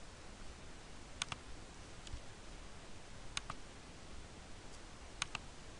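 Computer mouse button clicking: three sharp clicks about a second, three and a half seconds and five seconds in, each a quick double tick of press and release, with a fainter single click about two seconds in.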